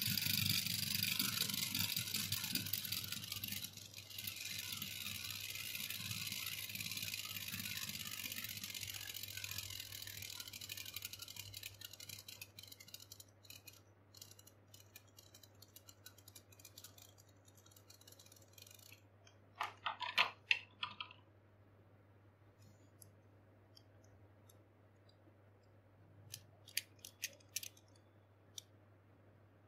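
Metal Fight Beyblade on its Final Drive tip spinning in a plastic stadium: a high whir that fades over about ten seconds. A short burst of rattling comes about twenty seconds in as it wobbles to a stop, and a few light clicks near the end as it is picked up.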